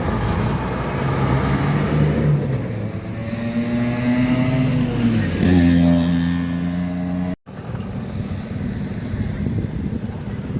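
Diesel engine of an intercity coach running as it moves through a bus terminal, its steady low engine note stepping to a new pitch a few times. About seven seconds in the sound cuts out briefly and continues as general traffic noise.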